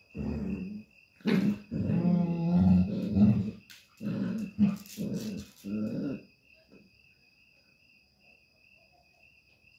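Dogs growling in short repeated bursts while an adult dog and her puppy tussle. The growling stops about six seconds in, leaving only a steady chirping of crickets.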